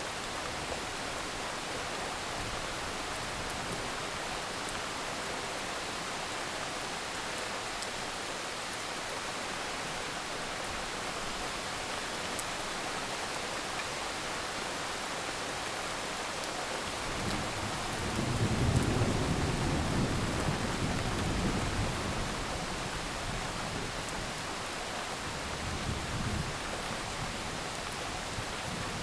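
Steady rain falling, with a low rumble of thunder swelling up a little past halfway and fading after a few seconds, then a smaller rumble near the end.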